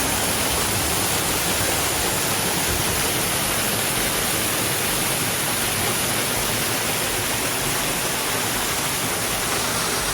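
Waterfall about 25 feet high, its heavy flow of water falling and rushing steadily.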